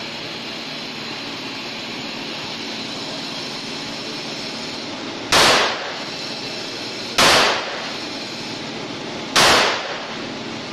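Three 9mm shots from a Glock 17 pistol, about two seconds apart, starting about five seconds in, each followed by a short echo, over a steady background hiss.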